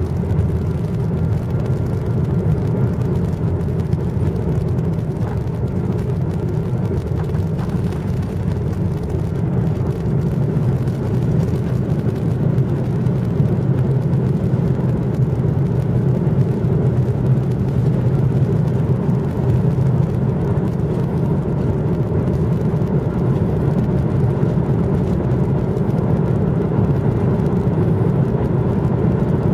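Steady jet engine and air-conditioning noise heard inside an airliner's cabin, a deep even hum that grows slightly louder about halfway through.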